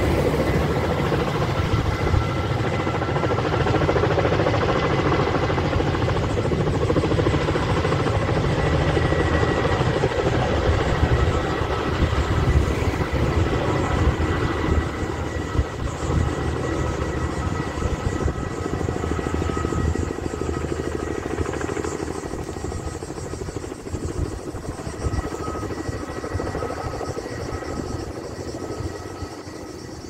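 A coaxial-rotor Kamov firefighting helicopter flying with a water bucket slung beneath it: a steady rotor beat under a high turbine whine. The sound grows gradually fainter over the second half as it flies away.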